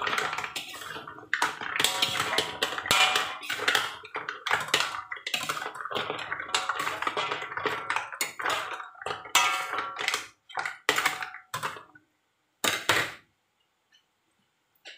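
A metal ladle stirring mussels in a metal wok: the shells clatter and the ladle scrapes and knocks against the pan in a busy, irregular run for about ten seconds. After that come a few separate knocks.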